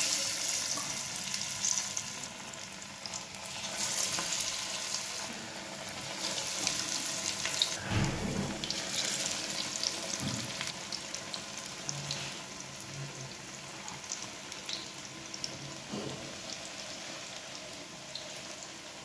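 Chana dal and greens pakoras deep-frying in hot oil in a kadhai: a steady sizzle with crackles that starts suddenly as the batter goes into the oil. A few low thuds come through about eight, ten and sixteen seconds in.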